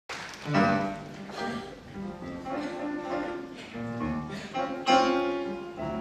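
Grand piano playing the slow opening of a ballad, with struck chords that ring on; the loudest chords come about half a second in and just before the five-second mark.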